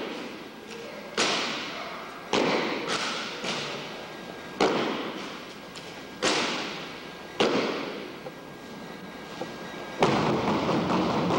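Rifle drill team striking their rifles in unison: about seven sharp cracks of rifle butts and hands slapping on the stocks, a second or so apart, each ringing out in the echo of a large hardwood-floored gym. Near the end a continuous rush of noise starts.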